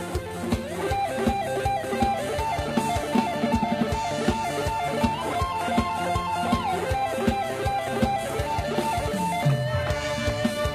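Instrumental lam sing band music: an electric plucked-string lead melody over bass and a fast, steady drum-kit beat.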